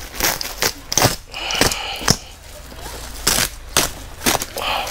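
Woven plastic sack and the plastic sheeting under it rustling and ripping as they are pulled open by hand, in a series of sharp crackles and tears.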